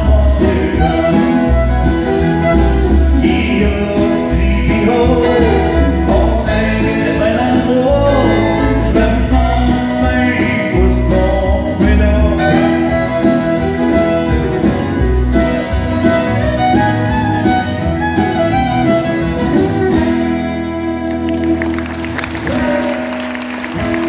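Live country band playing: acoustic guitars and fiddle under a male lead singer. Near the end the song winds down and applause starts.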